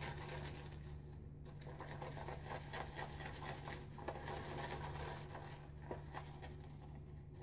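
Boar-bristle shaving brush whipping shaving cream into lather in a bowl: quick, rhythmic swishing strokes, several a second. The lather is thick and on the dry side.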